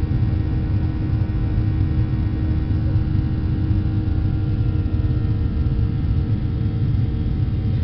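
Steady cabin noise of a jet airliner climbing out after takeoff: a loud, even rumble of the engines and airflow with a faint steady hum over it.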